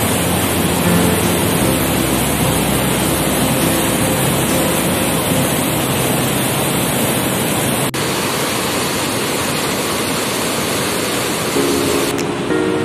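Augrabies Falls on the Orange River in flood: a loud, steady rush of heavy water pouring into the gorge, with a brief break about eight seconds in. Faint background music is heard again near the end.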